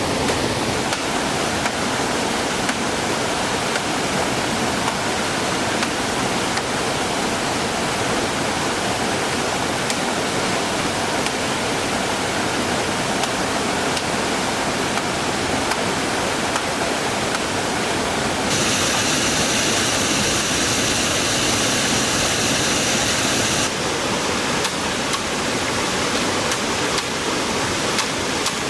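Rushing water of a highland stream or waterfall, a steady full hiss. For about five seconds past the middle a brighter, higher hiss with faint steady high tones comes in and cuts off suddenly.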